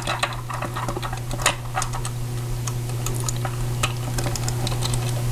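Small, irregular plastic clicks and taps as hands fit and push accessories onto a vintage G1 Transformers Sunstreaker toy, over a steady low hum.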